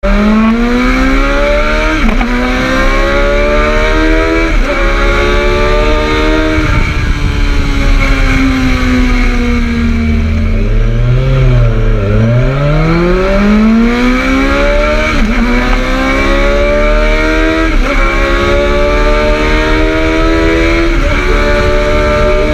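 Motorcycle engine accelerating hard up through the gears, its pitch climbing and dropping back at each shift, then slowing with the pitch falling away, and accelerating up through several gears again.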